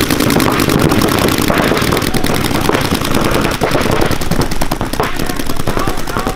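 Several paintball markers firing at once in rapid streams, a dense run of overlapping shots with no break.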